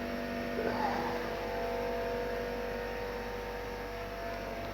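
Steady machine hum made of several constant tones over a faint even hiss, with no change in pitch.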